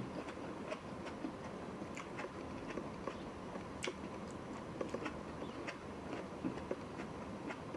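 A person chewing food close to the microphone, with scattered small clicks over a steady low hiss.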